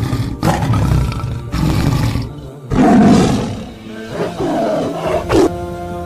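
A big cat roaring and growling in a series of rough calls, the loudest about halfway through, over background music.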